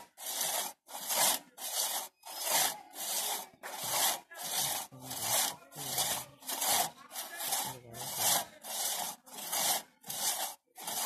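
Hand saw cutting through the base of a standing tree trunk: rasping back-and-forth strokes in a steady rhythm, about two a second.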